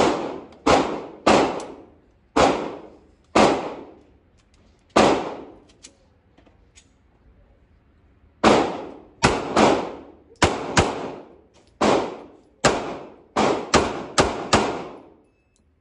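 A 9mm handgun firing a string of shots that echo off the walls of an indoor range: about six well spaced shots, a pause of about three seconds, then about eleven more, some in quick pairs.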